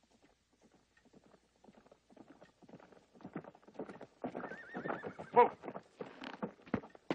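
Horse hooves clopping, growing louder as the horse comes closer, and the horse whinnying with a wavering cry about four and a half seconds in.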